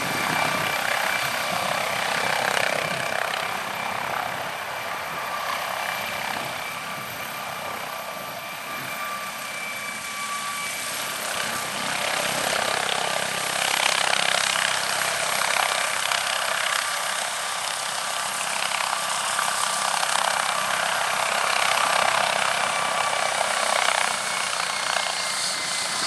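MD 902 Explorer twin-turbine helicopter running steadily, a rushing roar of rotor and exhaust with a high turbine whine over it. The whine dips slightly in pitch about a third of the way in and again near the end.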